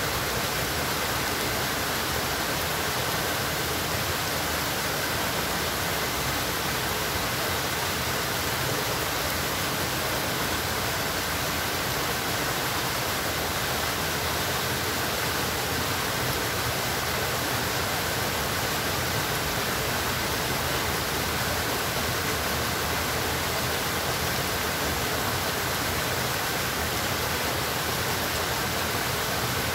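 Steady rush of flowing water: an even, unbroken hiss with no separate events.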